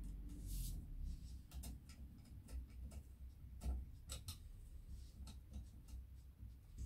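Faint, irregular small clicks and ticks of a hex key working small bolts into a carbon-fibre battery shelf on a metal RC truck chassis.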